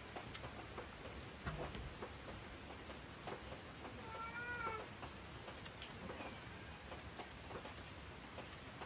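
A cat meows once, a single short meow rising and falling in pitch about four seconds in. Faint clicks and scrapes of a small knife peeling an apple come and go.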